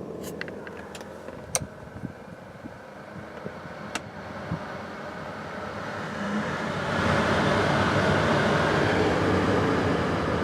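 The climate-control blower fan of a 1992 BMW 735iL (E32), with a few sharp clicks in the first four seconds, then the blower ramping up about six seconds in to a loud, steady rush of air. The noise follows a cabin filter change.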